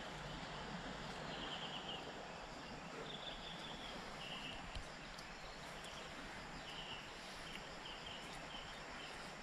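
Quiet forest ambience: a steady hiss of background noise with short, high, rattling chirps from small wild creatures every second or two.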